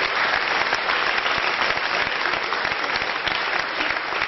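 Audience applauding: dense, steady clapping from a large room full of people.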